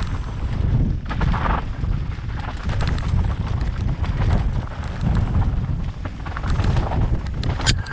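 Mountain bike descending a dry dirt singletrack, heard from a helmet camera: wind buffeting the microphone in a heavy rumble, with the tyres on dirt and the bike rattling in scattered clicks. A brief hiss comes about a second and a half in, and a sharp click near the end.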